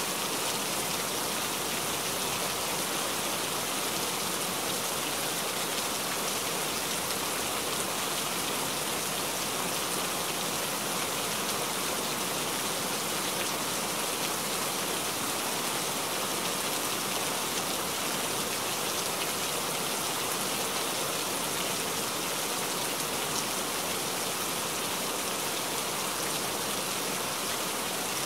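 Steady heavy rain, an even unbroken hiss.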